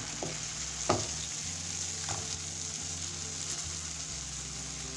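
Shredded chicken in tomato sauce sizzling in a frying pan as it is stirred with a plastic spatula, with a few knocks of the spatula against the pan, the sharpest about a second in.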